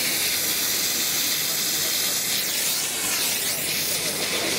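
Optima Steamer steam cleaner's spray gun hissing steadily as a jet of steam is sprayed onto a stained panel.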